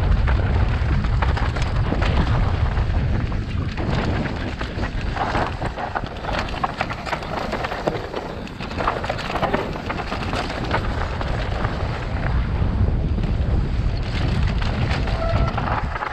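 Wind rushing over a helmet-mounted camera's microphone and mountain bike tyres rolling fast over loose dirt and rock on a steep downhill trail, with a steady clatter of the bike's parts and small stones.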